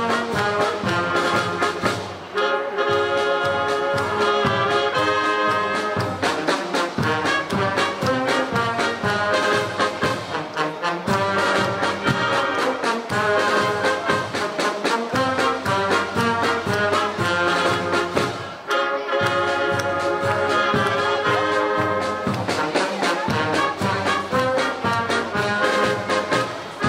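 Brass band playing, with trumpets, trombones and a sousaphone over a steady percussion beat, with two short breaks between phrases, about two seconds in and again at about nineteen seconds.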